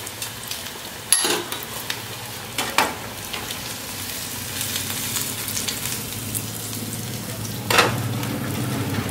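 Hot oil sizzling steadily around a whole battered onion deep-frying in a kadai, with a few sharp clinks of a metal slotted spoon against the pan, about a second in, near three seconds and near eight seconds, as the onion is turned and lifted out. The pakoda is near done, its petals fried crisp.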